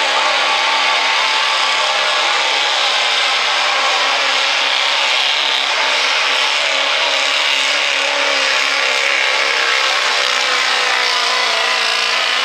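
Ford Super Duty dually diesel pickup pulling a sled under full throttle: a loud, steady diesel engine roar under heavy load, its pitch wavering only slightly.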